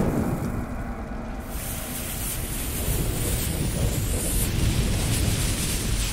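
Intro sound effects of fire and a burning fuse: a steady low rumbling roar, with a loud hiss joining in about a second and a half in.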